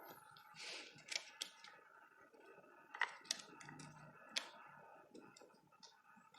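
Faint scattered clicks and a short rustle near the start, from small parts and a scrap of paper being handled while setting the gear mesh between an RC motor's pinion and the spur gear. A faint steady high hum sits underneath.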